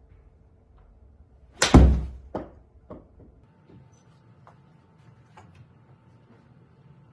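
Golf club striking a ball off a hitting mat, with the ball slamming into the golf simulator's screen a split second later. Two fainter knocks follow about half a second apart.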